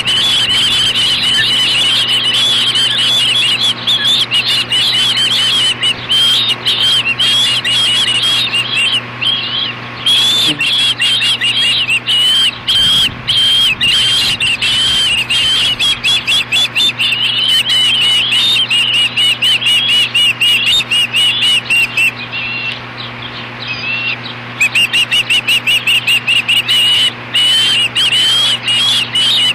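Ospreys calling almost nonstop in rapid, high-pitched chirps. This is the excited food calling at the nest as an adult delivers a fish and the young birds fight over it. The calling eases for a couple of seconds a little over twenty seconds in, then picks up again.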